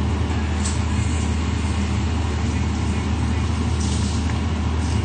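Steady low hum with an even hiss over it, from a wok of liquid simmering on the hob, with a couple of faint ticks.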